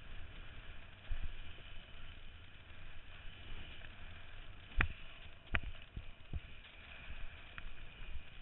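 Wind buffeting the microphone and water rushing under a kiteboard riding over choppy water. Four sharp knocks come in quick succession a little past halfway.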